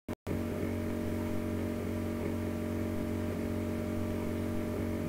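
A steady low hum made of several constant tones over a background hiss, with no speech. It cuts to dead silence twice for a split second right at the start.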